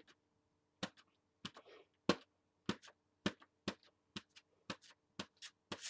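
Shiny inflatable pineapple balloon, loaded with paint, dabbed repeatedly against a sketchbook page: sharp taps about twice a second, with a short rustle about one and a half seconds in.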